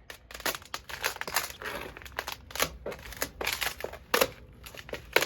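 Ice crunching and cracking in a quick, irregular run of crackles and snaps, with a few sharper cracks about a second and four seconds in.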